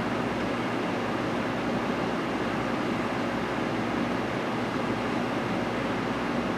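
Steady hum and rush from a saltwater reef aquarium's pumps and circulating water, unchanging throughout.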